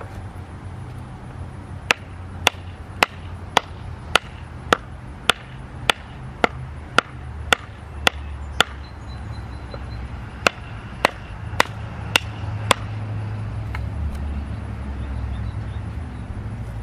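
A fixed-blade knife being batoned into an ornamental pear-wood branch: a wooden stick strikes the knife's spine in sharp, even knocks about two a second, a run of thirteen, a short pause, then five more.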